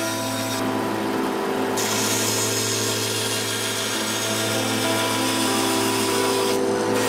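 Band saw running with a steady motor hum while its blade cuts through a board of oak. The hiss of the cut drops away briefly about a second in and again near the end.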